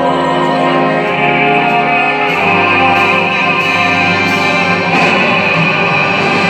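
Symphony orchestra playing an instrumental passage between sung phrases, with long held notes.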